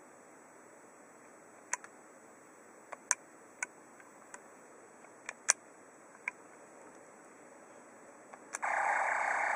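Sharp clicks, about nine of them spread over several seconds, from the die-cast Space Battleship Yamato 2199 toy being handled and its switches worked. About a second before the end the toy's built-in sound effect starts suddenly: a loud, steady, engine-like hum from its small speaker.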